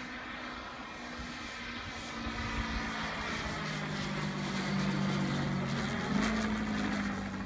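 Engine and propeller of a 2.7 m Pilot RC 330 aerobatic model airplane running as it flies past overhead, growing louder to a peak about five to six seconds in. The engine note steps up sharply in pitch about six seconds in.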